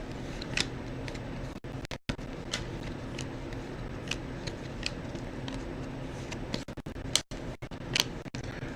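Trading cards being handled, giving a handful of short, light clicks and ticks at irregular intervals over a steady low hum.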